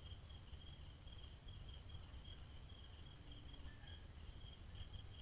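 Faint forest insect sound: a steady, high-pitched pulsing trill like crickets, over low background hiss.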